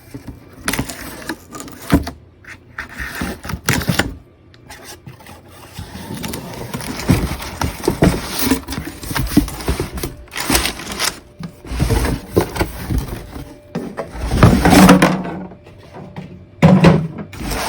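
A cardboard shipping box being opened and a plastic pet-food storage container pulled out of it: irregular scraping, rustling and knocks of cardboard and plastic being handled.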